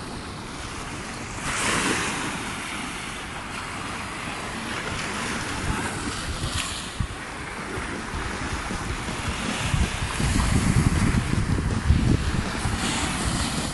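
Small waves washing onto a sandy beach, with wind rumbling on the microphone, gusting stronger about ten seconds in.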